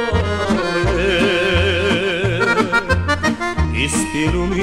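Accordion playing a fast, trilling melody over a steady bass beat in a Serbian folk song, with no singing.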